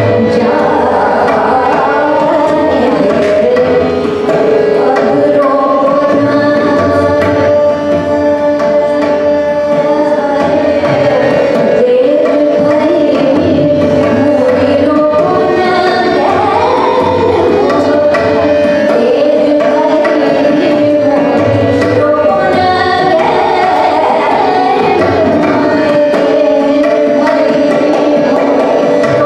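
Hindustani classical vocal music: a woman sings a bandish with tabla accompaniment, her melodic line moving over a steady drone while the tabla keeps a continuous rhythm.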